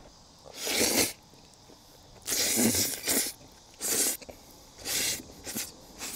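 A person slurping noodles: about five airy sucking bursts, each up to a second long, with short pauses between them.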